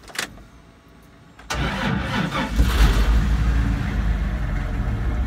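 Dodge Dakota 3.9-litre V6 starting: a short click, then about a second and a half in the engine cranks and fires, its pitch rises and falls briefly, and it settles into steady running.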